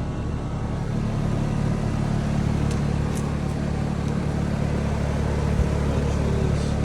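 Central air-conditioning system running just after start-up: a steady low mechanical hum of the compressor and fan.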